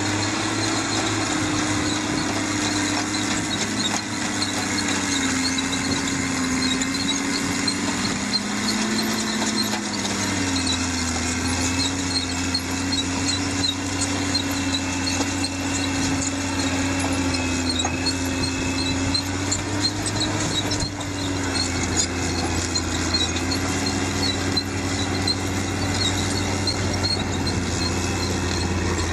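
Heavy construction machine running continuously, its engine pitch shifting slightly up and down, with a repeated high squeaking alongside.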